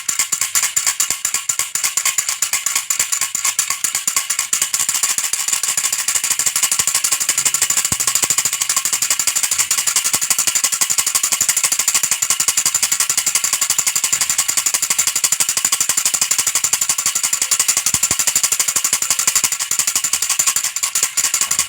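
Baby rattle shaken fast and without pause, a dense, steady, high rattling.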